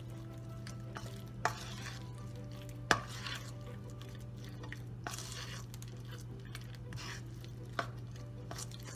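Thick flour batter with chunks of fermented cassava being stirred in a bowl with a spoon: soft swishing, with a few sharp knocks of the spoon against the bowl. A steady low hum runs underneath.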